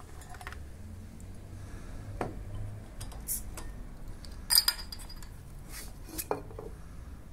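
Glass and metal handling noises: a Heineken glass beer bottle knocked and clinked, then its crown cap pried off with a metal bottle opener, a sharp click with a brief metallic ring about four and a half seconds in. A few more light clicks follow as the aluminium dispenser's lid is handled.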